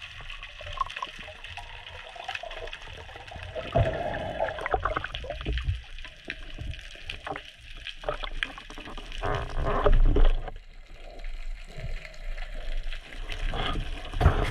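Muffled underwater rushing and swishing of water as a diver moves, with scattered knocks and clicks from handling the speargun and line; the water noise swells loudest about ten seconds in and again near the end as hands come close to the camera.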